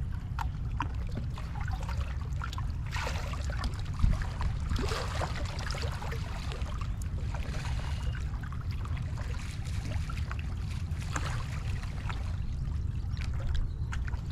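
Small waves lapping and splashing against a rocky riprap shoreline over a steady low rumble, with one sharp knock about four seconds in.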